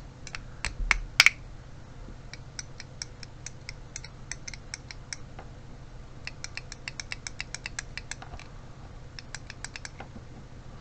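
Sharp small plastic clicks from the electric window switch being handled and worked on the bench. A few louder clicks come in the first second or so, then three runs of quick, evenly spaced clicks at about four to five a second.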